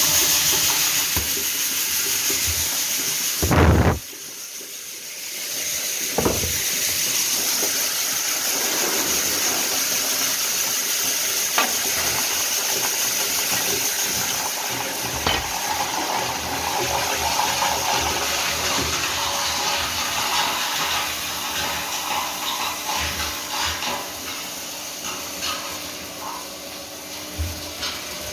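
Homemade vertical auger grain mixer running on its 2.2 kW three-phase electric motor: a steady hiss of grain churning in the tank and pouring out through the discharge chute. There is a loud thump about three and a half seconds in, after which the sound is briefly quieter.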